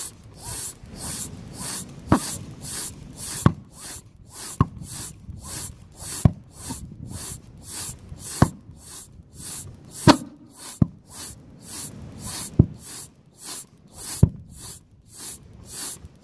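Pulse jet being readied to start: short hissing puffs of air about twice a second, with a sharp click every second or two.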